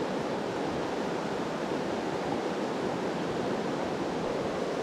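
A fast-flowing mountain river rushing steadily over rocks and riffles.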